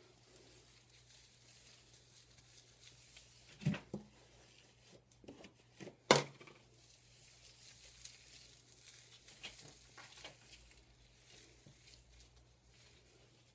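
Quiet handling noises of gloved hands working hair dye through hair, with scattered small clicks and two louder knocks, about four and six seconds in.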